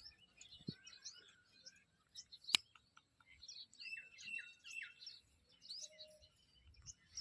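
Small birds chirping in many short, high calls, faint throughout, with one sharp click about two and a half seconds in.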